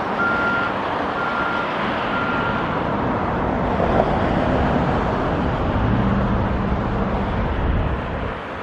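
A vehicle's reversing alarm beeps three times, about once a second, then stops, over steady traffic noise. A low engine hum comes in about five seconds in.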